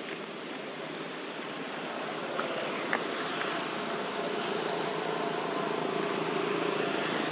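A distant motor's steady drone, growing gradually louder, with two faint clicks about two and a half and three seconds in.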